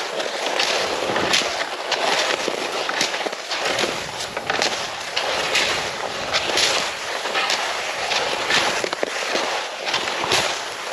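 Rhythmic crunching and scraping of a person's strides along a trail, a strong crunch about once a second with smaller crackles between.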